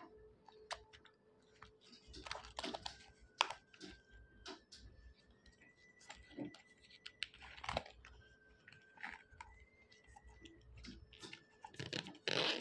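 Faint handling noises of a zip-around leather wallet: scattered light clicks, taps and rustles as fingers open its compartments and run along the metal zipper, with a faint steady tone underneath.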